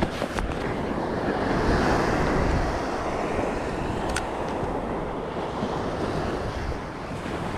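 Small surf waves breaking and washing up the beach, with wind buffeting the microphone. A light click about four seconds in as the spinning reel is handled.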